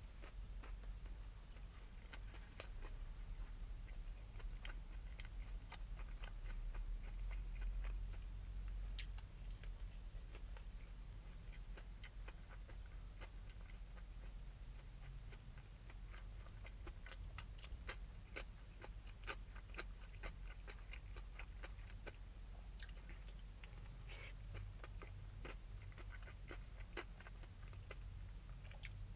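Close-up chewing of a spicy fried chicken sandwich, the crispy breading crunching in many small sharp crackles.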